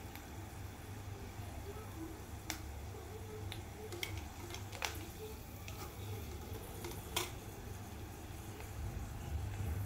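Peanuts and curry leaves frying in hot oil in a wire strainer: a light sizzle with scattered sharp crackles and pops, the loudest about seven seconds in, over a steady low hum.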